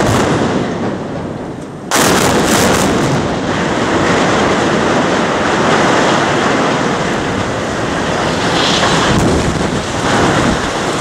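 Explosive demolition charges going off in a sharp volley, with a second sudden cluster of blasts about two seconds in. Then a sustained, heavy rumble as steel boiler houses and reinforced-concrete chimneys collapse to the ground.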